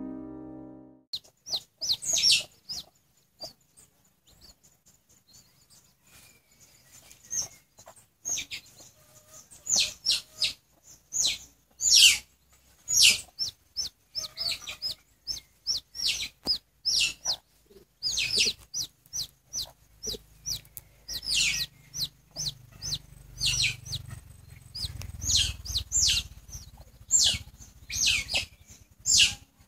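A baby chick peeping loudly and repeatedly: short, high-pitched peeps in irregular runs.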